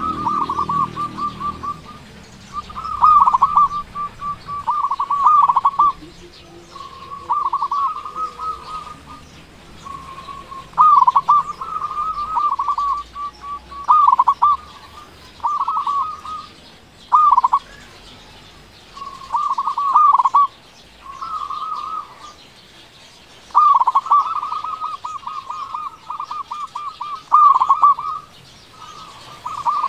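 Zebra dove (local perkutut) singing its loud, big-voiced coo: phrases of quick, clipped, falling-hooked notes, repeated every two to three seconds.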